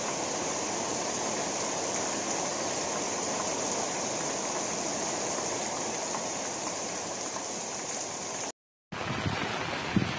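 Heavy rain pouring steadily onto palms and trees, a dense even hiss. About eight and a half seconds in it cuts off abruptly, and wind buffeting the microphone follows.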